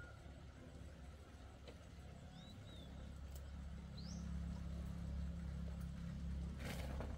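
A low, steady engine hum grows louder from about three seconds in, with a few short bird chirps over it and a brief burst of noise near the end.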